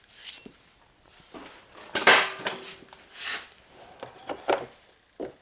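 Metal hand tools being handled and set down, a string of clinks and knocks; the loudest comes about two seconds in, with a short metallic ring after it.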